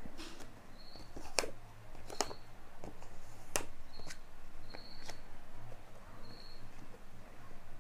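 Light plastic handling sounds from a flexible matte screen-protector film as its protective liner and pull-tab are peeled: sharp ticks and crackles about a second apart. Short, faint high-pitched chirps recur every second or so.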